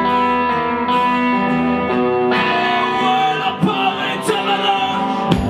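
A live band playing with guitars prominent, and a male voice singing over it at times.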